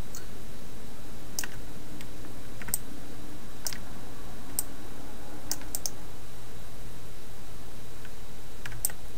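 Scattered clicks from a computer mouse and keyboard, about ten at irregular intervals with a quick cluster in the middle, over a steady low electrical hum and hiss.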